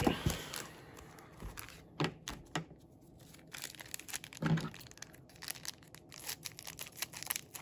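Plastic wrapping and foil booster packs crinkling and tearing as a Yu-Gi-Oh! booster box is opened, with scattered clicks and rustles of handling.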